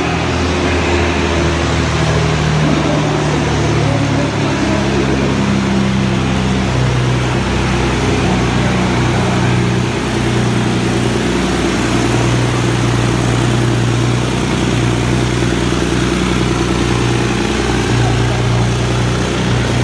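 Volvo F10 truck's diesel engine running hard under full load as it drags a truck-pulling sled, a loud, steady drone whose pitch shifts a little as it goes.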